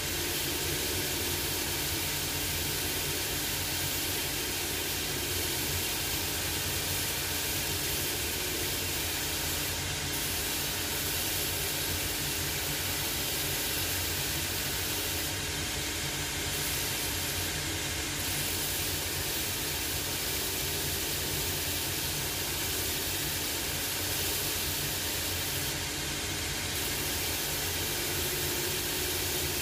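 Cobbler's shoe finishing machine running steadily, its motor and dust extraction giving a constant hum and hiss while a leather sole is sanded against its wheels.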